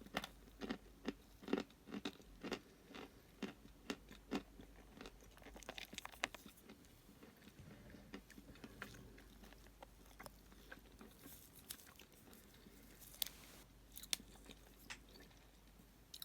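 A person chewing a piece of chalk close to the microphone: crisp crunches about twice a second at first, thinning to fainter, scattered crunches later.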